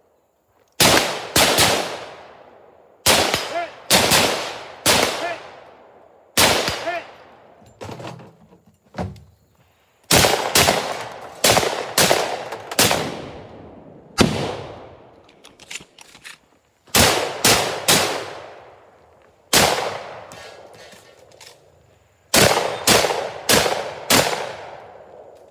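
A competition shooter firing a long gun rapidly: about thirty shots in quick strings of two to five, with pauses of one to three seconds between strings, each shot trailing off in a short echo.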